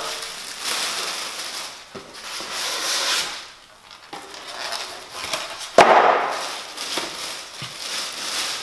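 Plastic packing bags crinkling and rustling as packing is pulled from a cardboard box, with a sharp knock about six seconds in.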